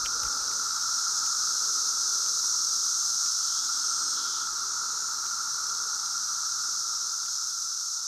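Dense chorus of 17-year periodical cicadas: a steady, even droning hiss with a lower hum and a higher shrill layer.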